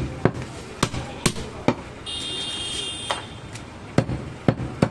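A heavy butcher's cleaver chopping goat meat on a wooden log chopping block: about eight sharp, irregular blows, with a pause of over a second in the middle. During that pause a steady high tone from an unseen source sounds for about a second.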